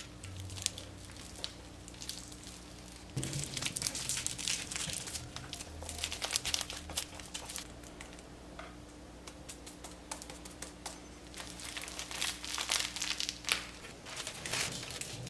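Crinkling and crumpling of light, crisp material handled by hand, a dense run of quick crackles that starts about three seconds in and keeps going until near the end, with a brief burst near the very end.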